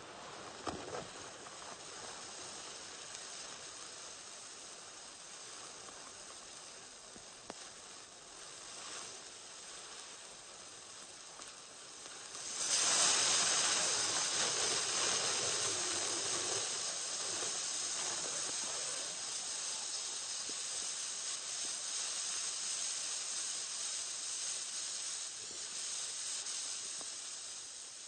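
Burning fuse hissing steadily, with a few sharp crackles in the first seconds. About twelve seconds in it flares suddenly into a louder, brighter hiss that then eases off slowly.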